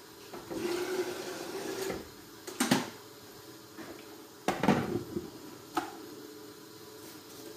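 Kitchenware clattering: a few sharp knocks and clinks of pots and utensils, with a brief rustling stretch early on.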